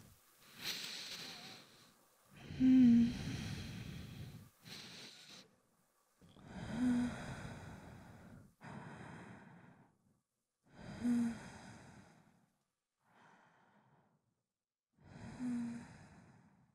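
A woman's slow, sleepy breathing close to the microphone as she drifts off to sleep. There are four soft sighing exhales about four seconds apart, each starting with a brief hum of voice, with quieter breaths in between.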